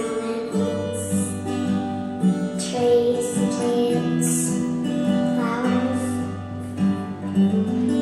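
Film soundtrack music with plucked strings over held notes, played through a theatre's sound system.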